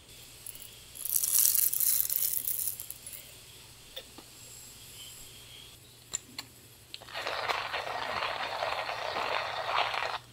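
A rattling burst about a second in, then coffee beans being ground in a coffee grinder: a steady grinding noise from about seven seconds in that stops suddenly at the end.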